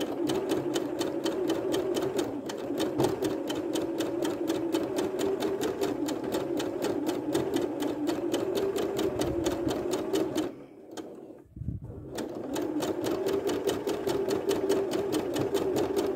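Bernette domestic sewing machine stitching at speed during free-motion quilting: a fast, even needle clatter over a steady motor hum. It stops briefly about ten seconds in, then starts up again.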